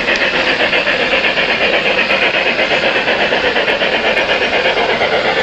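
Model train running on layout track close by: a steady loud rushing noise with an even pulse of about four or five beats a second.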